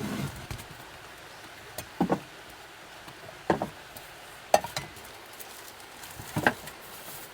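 Four short knocks or clatters, each a quick double or triple hit, spread a second or two apart over a steady faint background rush.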